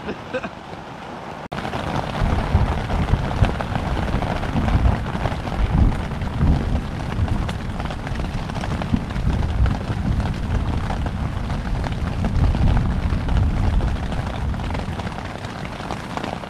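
Heavy thunderstorm: rain pouring down with a deep, rolling rumble of thunder that comes in suddenly about a second and a half in, swells and surges for several seconds, and eases toward the end.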